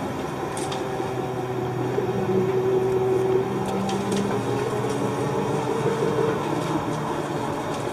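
Cabin noise inside a moving city bus: a steady drive drone and road noise, with humming tones from the drivetrain that drift up and down in pitch as it rounds a turn, and a few faint rattling ticks.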